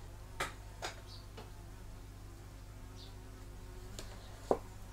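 Faint clicks and taps of small plastic model propeller parts being handled and fitted, over a steady low hum. The sharpest tap comes near the end.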